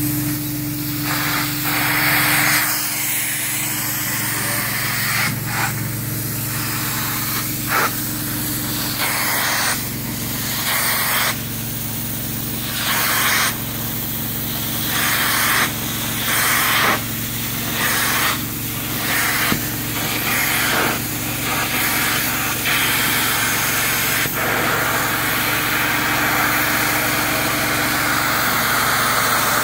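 Truck-mounted extraction unit sucking air and water through a handheld upholstery tool on a microfiber chair: a steady hiss over a low hum, changing sharply every second or two as the tool is stroked across the fabric and lifted.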